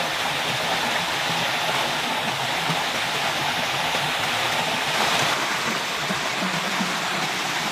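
A small forest waterfall and stream, water rushing steadily.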